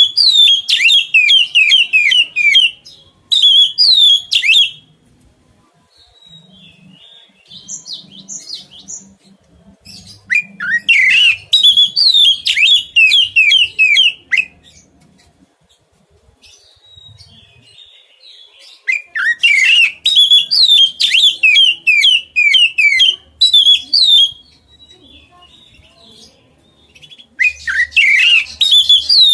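Oriental magpie-robin (kacer) singing loud bouts of rapid, repeated downslurred notes, each bout a few seconds long, with pauses and a few soft calls between.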